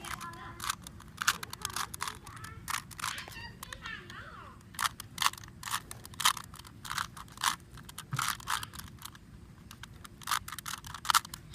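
A Rubik's cube being turned fast by hand during a layer-by-layer solve: sharp plastic clicks of the layers snapping round, several a second at an irregular pace, with faint voices in the background.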